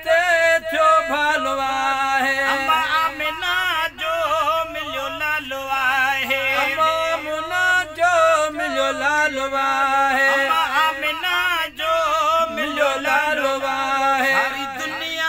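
A man singing a Sindhi naat in a long, wavering, ornamented line with no clear words, the pitch sliding up and down.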